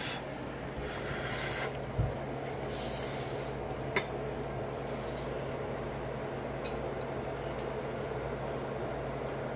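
A spoon scraping and tapping in a bowl of food, with a dull knock about two seconds in and sharp clinks about four and seven seconds in, over a steady low hum.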